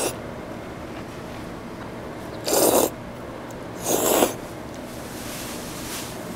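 Someone slurping ramen noodles: two short, loud slurps about a second and a half apart near the middle, with steady low room noise between.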